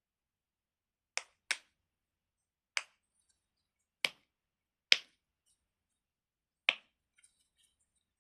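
Silicone pop-it fidget toy's bubbles being pressed through, six sharp separate pops at uneven intervals, two of them close together a little over a second in.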